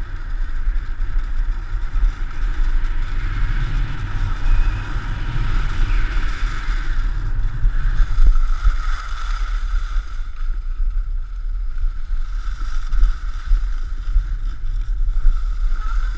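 Wind rumbling over the microphone while skiing downhill, mixed with a steady rushing hiss of skis sliding over packed snow.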